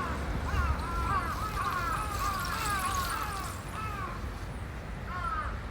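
A run of short, high, falling animal calls, many overlapping in the first few seconds and a few more near the end, over a low background rumble.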